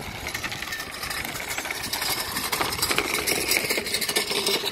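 Wire marina luggage trolley rattling as its small wheels roll over paving, a fast continuous clatter that grows louder about two seconds in.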